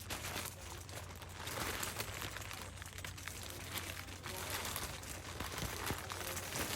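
Plastic or nylon material crinkling and rustling with small crackles as it is pressed down to squeeze the air out.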